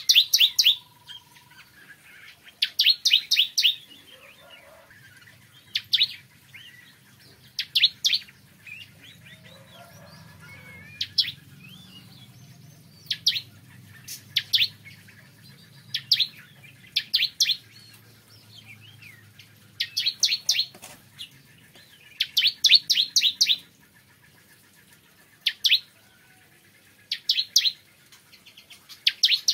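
Ciblek kristal (bar-winged prinia) singing: short bursts of rapid, high, sharp chirping notes, repeated every one to three seconds.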